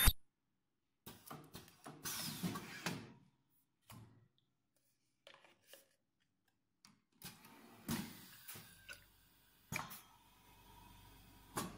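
Scattered mechanical clunks and clicks from a plastic tube filling and sealing machine as a tube is set in its holder and the filling nozzle moves into it, with near-silent gaps between.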